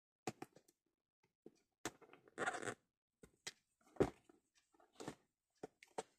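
Scissors snipping ribbon and craft materials being handled: scattered short clicks and rustles, with a longer rustle about two and a half seconds in.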